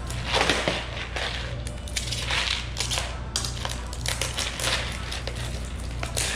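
Stiff clear plastic blister packaging crackling and crinkling in irregular bursts as it is handled and pulled apart, over a steady low hum.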